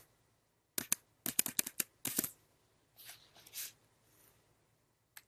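Computer keyboard keys clicking in quick runs, about a second in and again for about a second after, then a few softer key or mouse sounds, as a terminal command is edited and a copied IP address pasted in.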